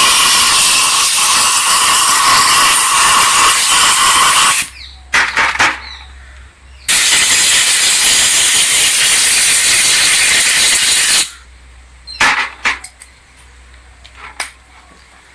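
Compressed-air blow gun hissing in two long blasts of about four to five seconds each, blowing carbon-brush dust out of a scooter starter motor's housing and end cap. Short clicks and knocks of the parts being handled come between the blasts and after them.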